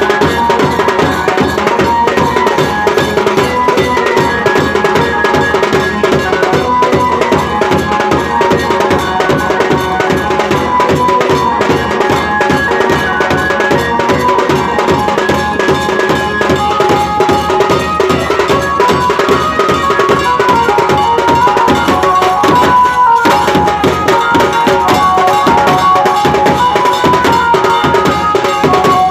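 Loud Indian folk-style music: a fast hand-drum rhythm with a melody line over it, with a short break about three-quarters of the way through.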